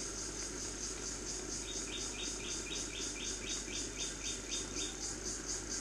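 Insects, cricket-like, chirping in a fast, high, even pulse, joined for a few seconds by a second, lower chirp repeating about four times a second.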